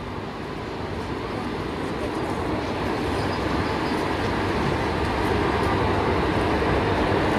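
Indian Railways WAP-4 electric locomotive and its train rolling slowly past along the platform: a steady hum and rumble of the locomotive and wheels, growing louder as it draws level.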